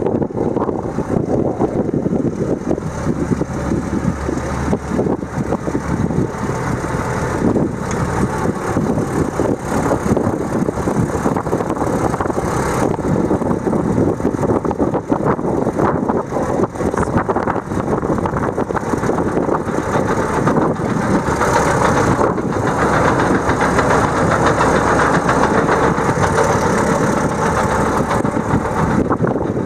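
John Deere 8640 tractor's 10.1 L six-cylinder diesel engine idling steadily.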